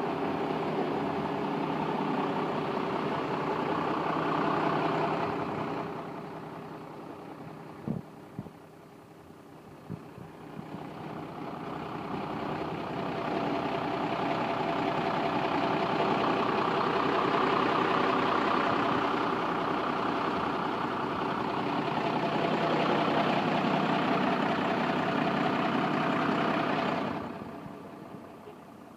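Yard goat terminal tractor's diesel engine idling with a steady drone. It fades for a few seconds about a quarter of the way in, with two sharp clicks, then grows louder again before dropping off near the end.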